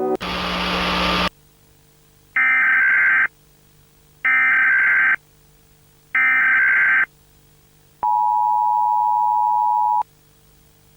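Emergency Alert System tones: a burst of static, then three one-second chirping SAME digital header bursts, then the two-tone EAS attention signal held for about two seconds, over a faint low hum.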